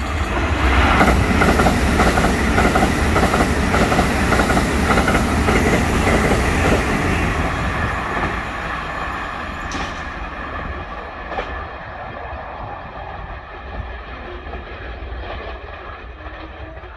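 Taiwan Railways EMU900 electric multiple unit train passing at speed, its wheels clattering rhythmically over the rail joints. The noise is loudest in the first half and dies away over the rest, with a single sharp tick about ten seconds in.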